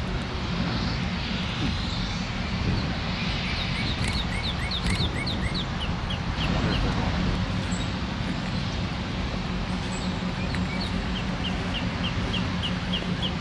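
EMD GP9 diesel locomotive's two-stroke engine rumbling steadily as it moves slowly. A songbird sings two quick runs of short, falling notes, about three seconds in and again near the end.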